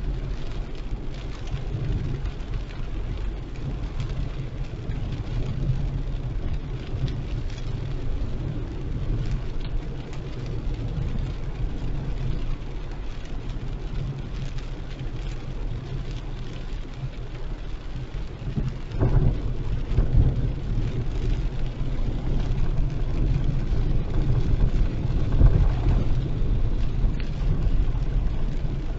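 Heavy rain falling on and around a car driving through a storm, over a steady low rumble of the car and road. The sound gets louder about two-thirds of the way through.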